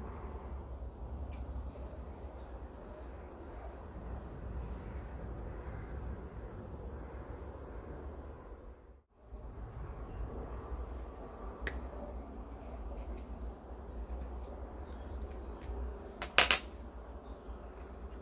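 Small brass and steel lamp parts handled and fitted together in a bench vise, with faint metal contact sounds and one sharp metallic clink near the end, over a steady low hum and a high-pitched hiss. The sound cuts out for a moment about halfway.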